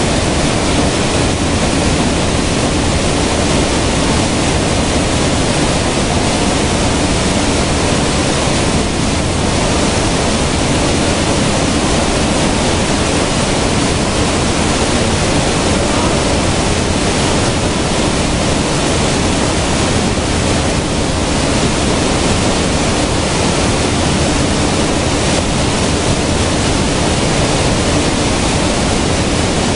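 Grain-cleaning sieve machines running: a loud, steady rushing noise.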